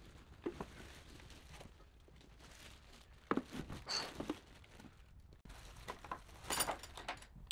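Plastic wrapping crinkling and rustling in short bursts as wrapped drill-press parts are lifted and handled, with a few soft knocks.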